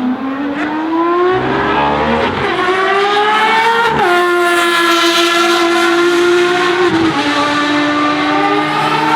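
Ferrari FXX Evoluzione's V12 engine pulling hard on track. Its note climbs in pitch and drops sharply at each upshift, about three times.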